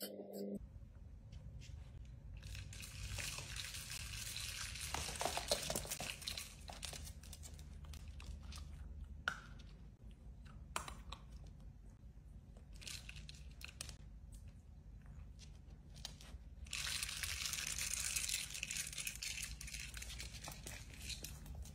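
Dachshund puppy crunching a piece of raw carrot, then a dachshund nosing a plastic treat-dispensing toy across a hardwood floor. Crackly rustling and crunching with a few sharp clicks and knocks, over a low steady hum.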